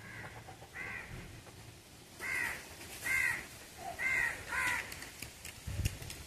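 A crow cawing about six times in short, harsh arched calls, the first two fainter.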